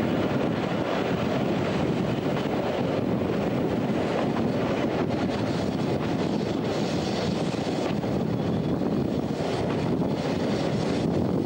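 Steady rumble of a passenger train running on the track, heard from an open coach window, with wind buffeting the microphone.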